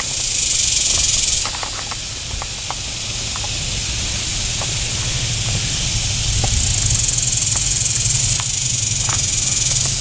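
A chorus of cicadas buzzing in the trees: a steady high hiss that swells louder near the start and again through the second half. A low steady hum runs underneath, with a few faint ticks.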